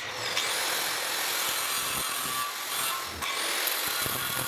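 Power tool spinning up twice, its motor pitch rising each time, with a harsh high hiss of cutting or grinding.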